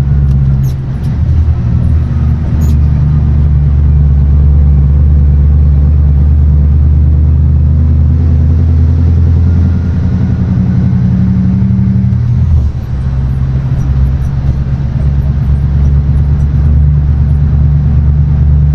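Diesel engine of a loaded off-highway Scania logging truck running steadily under load while driving. The engine note dips briefly about a second in and changes again around twelve seconds.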